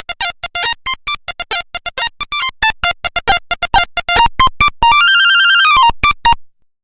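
Nokia 1100 monophonic ringtone: a fast, jumpy melody of short electronic beeps, then a held note that warbles up and down for about a second near the end, a few last beeps, and a sudden stop.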